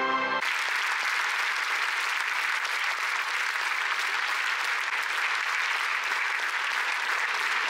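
Theatre audience applauding a ballet curtain call: dense, steady clapping from a full house. Music breaks off abruptly about half a second in, and the applause runs on evenly.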